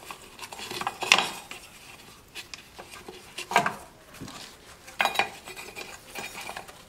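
Scattered clicks and light clatter of metal and plastic parts as hands move a wiring harness and hoses about in an engine bay, with louder knocks about a second in, around the middle and about five seconds in.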